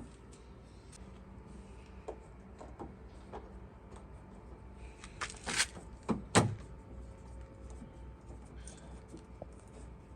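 Small clicks of parts being handled, then two short, louder clunks about a second apart near the middle, as the door handle's securing bolt is put back in on the lock-barrel side of a car door.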